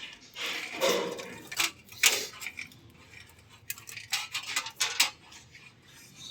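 Irregular light clinks and knocks, as of small metal objects being handled, bunched in a few clusters with quiet gaps between.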